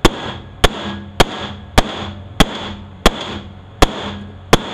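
Repeated sharp metal-on-metal strikes, eight in all about every 0.6 s, each with a brief ring, as an automatic-transmission clutch drum is knocked to free its stuck pistons.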